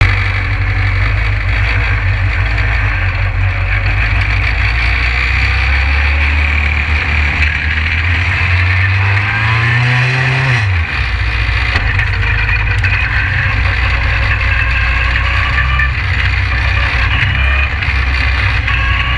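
SpeedSTR short-track race car's engine running hard at speed, heard from the cockpit. Its pitch climbs, then drops sharply about ten seconds in, and holds steady after that.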